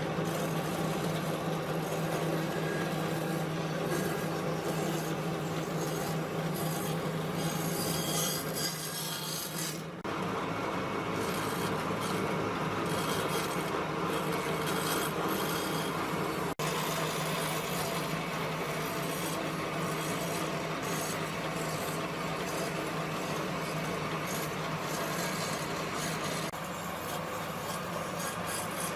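Wood being abraded by a tool with a steady motor hum: continuous rough rubbing, its character changing abruptly three times.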